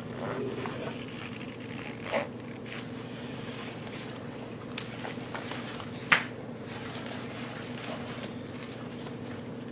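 Nylon daypack being handled, its fabric rustling, with a few sharp clicks from the plastic sternum-strap slider and buckle, the loudest about six seconds in. A steady low hum runs underneath.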